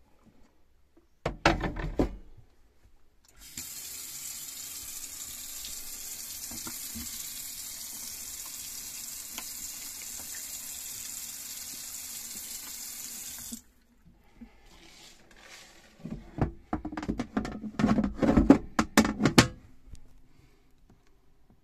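Mixer tap running steadily into a stainless-steel sink bowl for about ten seconds, then shut off abruptly. A brief clatter of knocks comes shortly before the water starts, and a louder run of knocks and clicks a few seconds after it stops.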